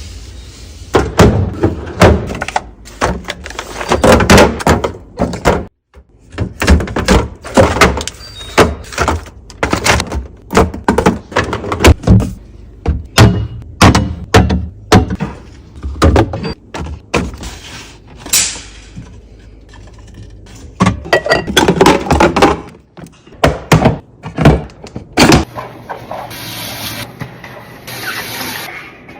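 Food containers, jars and packages being handled and set down on refrigerator shelves and in bins: a busy run of knocks, clicks and plastic rattles, with a steadier rustling noise near the end.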